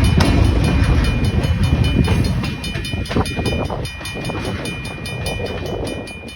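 Wisconsin & Southern freight train rolling past, its wheels rumbling and knocking over the rails, growing fainter from about halfway through. A thin steady high-pitched tone runs over it.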